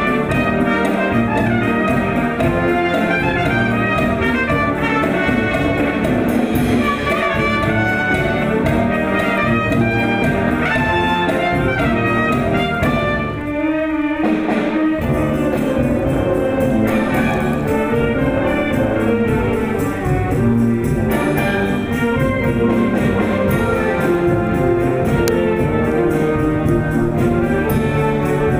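Orchestral background music with brass, with a short thinner passage about halfway through.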